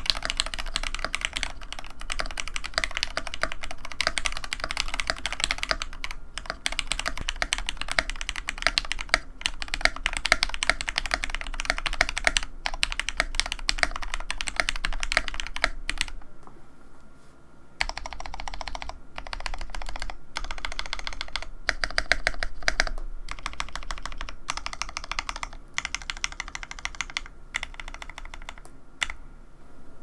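Fast typing on a YC66 mechanical keyboard with Akko x TTC Demon linear switches and DSA keycaps, heard first with the switches stock and then lubed with Krytox 205g0 on the stems and 105 on the springs. The keystrokes come as a dense stream of clicks and clacks, with a brief lull about two-thirds of the way through.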